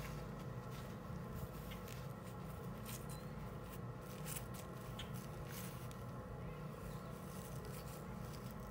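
Steady background hum holding several constant tones, with scattered faint clicks and ticks.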